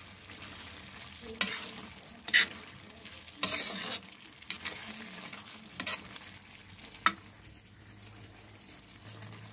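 Metal spatula stirring and scraping diced pumpkin in a metal kadhai, with about six sharp scrapes and knocks against the pan at irregular intervals, over the soft frying of the pumpkin cooking in sugar without water.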